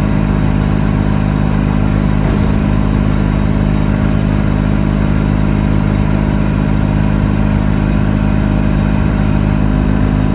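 Ligier Ambra microcar's 505 cc Lombardini two-cylinder diesel engine running at a steady speed while the car cruises, heard from inside the small cabin.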